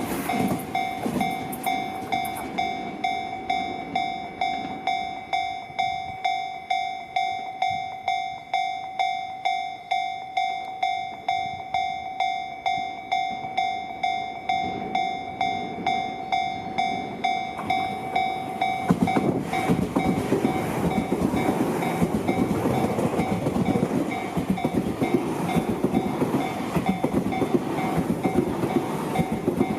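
Japanese level-crossing alarm ringing its steady electronic "kan-kan" about twice a second throughout. A train rumbles past with wheel clatter at the start and fades within a couple of seconds; about two-thirds of the way in, another electric commuter train arrives and rumbles over the crossing, its wheels clattering, under the ringing.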